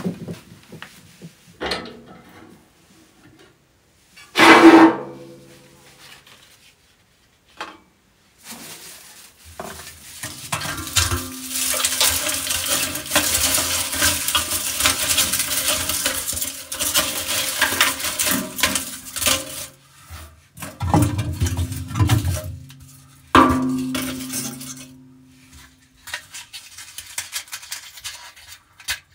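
Dry bark, wood shavings and kindling sticks rustle and crackle as they are piled on the grate inside a steel wood stove's firebox, with the steel ringing where the wood knocks against it. There are sharp metallic knocks with a ringing tail about four seconds in and again near the end.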